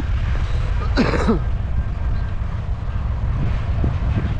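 A steady low rumble, with a person briefly clearing their throat about a second in.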